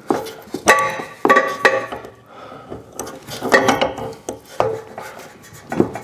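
Repeated sharp metallic clinks and scrapes, some ringing briefly, from a hand tool prying at the plastic combustion fan of a Suburban furnace to work it loose on its motor shaft.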